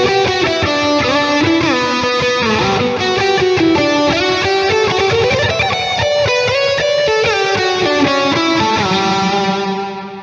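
Seven-string Strandberg Boden True Temperament electric guitar with Fishman Fluence pickups playing a distorted lead line. Quick single notes with slides and bends run into a held final note that fades away near the end.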